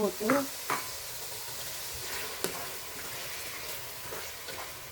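Chicken pieces sizzling in hot oil with fried onions and ginger-garlic paste in a pan: a steady frying hiss, with a few sharp clicks.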